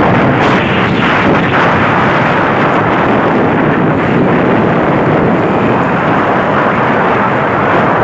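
Steady loud rush of wind on the microphone mixed with the running noise of a moving vehicle travelling along a wet road.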